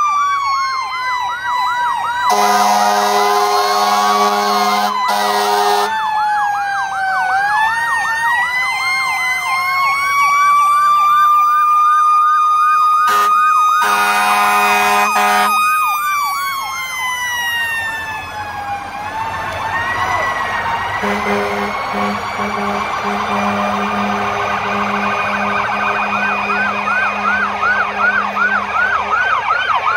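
Fire-parade emergency vehicle sirens sounding together: a fast yelp of about three chirps a second alongside a slow wail that falls and rises. Loud horn blasts come about two seconds in and again around the middle.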